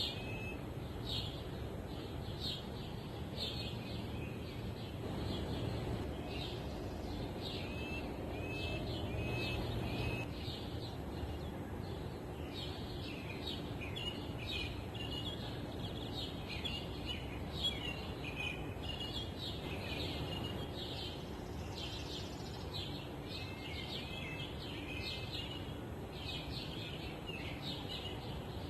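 Songbirds chirping, short high notes repeating every second or so throughout, over a steady low rush of wind.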